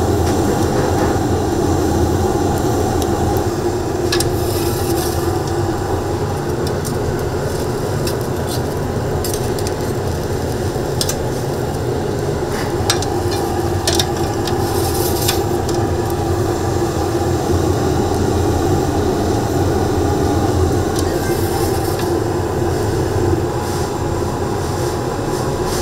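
Busy commercial kitchen noise: a loud, steady mechanical roar with scattered light clicks and knocks.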